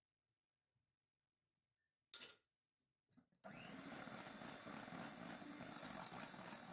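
Electric hand mixer switched on about three and a half seconds in, its beaters running steadily through whipped cream with banana puree in a glass bowl. A short knock comes about two seconds in, before the mixer starts.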